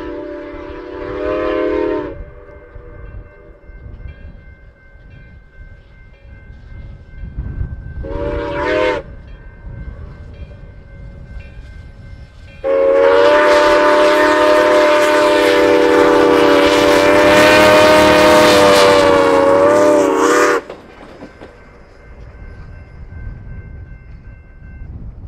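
Multi-note chime steam whistle of the former CB&Q 2-8-2 Mikado steam locomotive #4960 blowing three times: a blast that ends about two seconds in, a short blast around eight seconds, and a long, loud blast from about thirteen to twenty seconds. Each blast is a chord of several notes, with a low rumble from the locomotive underneath.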